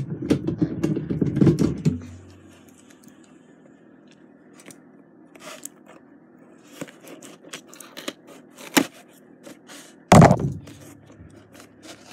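Cardboard toy box being handled and opened: rubbing and scraping for about the first two seconds, then scattered small clicks and taps, and one heavy thump about ten seconds in.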